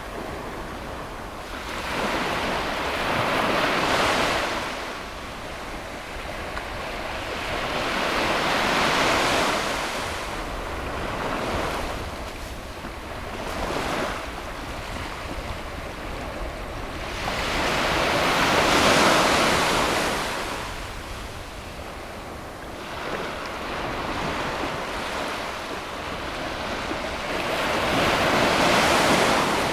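Ocean waves breaking on a beach, the surf swelling and washing out again about every five seconds over a steady low rumble. The loudest wave breaks a little past the middle.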